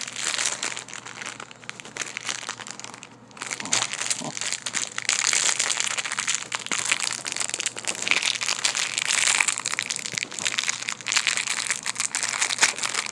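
Plastic packaging crinkling and rustling as it is handled, a dense run of small crackles with a short lull about three seconds in.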